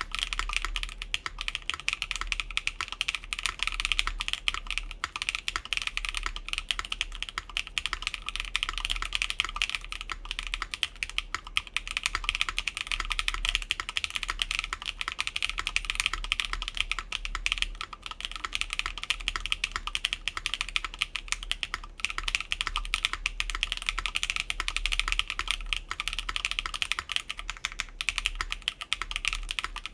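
Continuous fast typing on an Atelier Magnus Slate Zero mechanical keyboard with factory-lubed Keygeek Blue Cheese v2 switches, a full aluminum plate and DSA keycaps, with the plate and case foam removed: a dense, steady stream of keystrokes.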